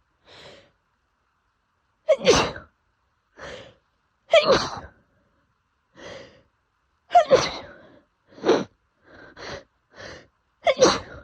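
A woman in an allergy sneezing fit: about five loud sneezes a couple of seconds apart, with softer bursts between them. The fit is brought on by pollen allergy.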